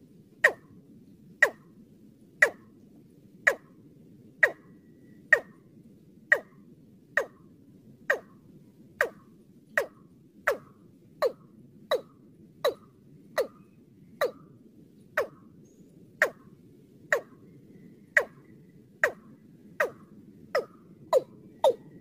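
Watercock calling: a series of short, sharp notes, each dropping in pitch, about one a second, quickening over the last few seconds.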